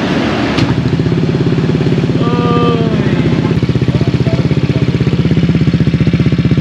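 Motor scooter's engine idling through an ETech Power Pipe aftermarket exhaust whose muffler screen has just been rewrapped with new fiber mat. It comes in about half a second in and runs with a steady, fast pulsing beat.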